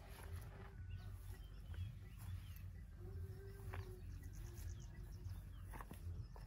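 Quiet outdoor scrub-forest ambience: faint bird chirps and a brief rapid high trill about halfway through, over a low steady rumble, with a couple of light clicks.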